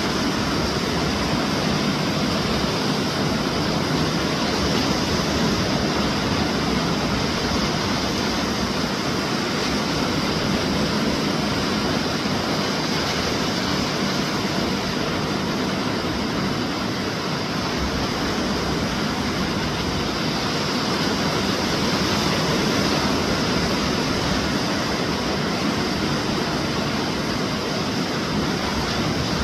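Gulf of Mexico surf breaking on a sandy beach: a steady rushing wash with slow, gentle rises and falls in loudness.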